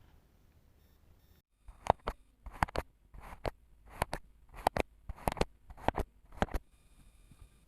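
Kinetic sand being cut, a series of about ten crisp crunches at roughly two a second, starting about a second and a half in and stopping shortly before the end.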